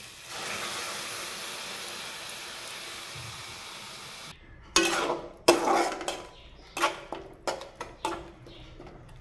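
Tomato paste hissing as it is poured into hot oil in a metal kadhai. About halfway through, a string of sharp metallic clanks and scrapes follows as the steel mixer jar is knocked empty over the pan and a spatula stirs the paste.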